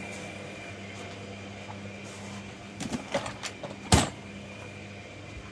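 Objects being handled and knocked about while searching, a few clicks and clatters about three seconds in and one sharp knock just before four seconds, over a steady low hum.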